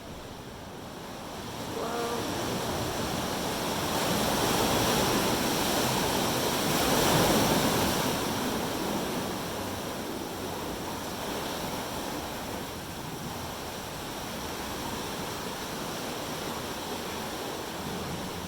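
Ocean surf washing in and breaking. It swells a couple of seconds in, is loudest about seven seconds in, then eases back to a steady wash.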